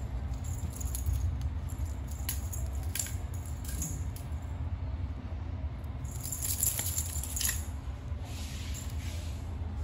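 Light metallic jingling and scattered clicks from a kitten playing, over a steady low rumble.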